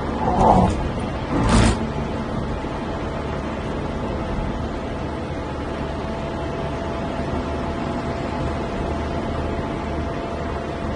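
Steady road and engine noise of a moving car heard inside its cabin, with two short knocks in the first two seconds.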